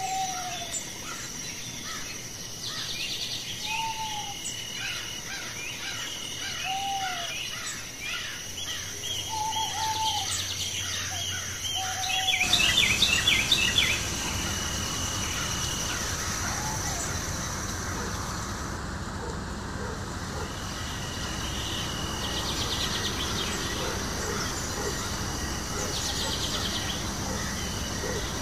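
Outdoor nature soundscape: birds calling, with a short arched whistle repeated every few seconds and many small chirps, over a steady high insect trill. About 12 seconds in, a steadier background hiss comes up with a brief flurry of rapid chirps, then the insects and occasional bird calls carry on.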